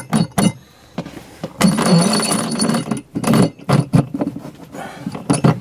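Long threaded steel rod being fed through a plastic cooler's hinge hole and a washer: metal clinks and a scraping stretch with a faint ringing, then a few sharp knocks as a nut goes onto the rod.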